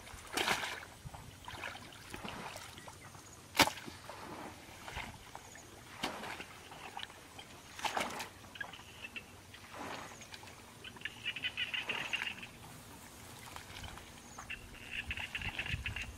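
Muddy water sloshing and splashing in irregular bursts as hands scoop and pull mud and weeds in a shallow ditch, with one sharp knock about three and a half seconds in, the loudest sound. A rapid high chirring trill comes twice in the second half.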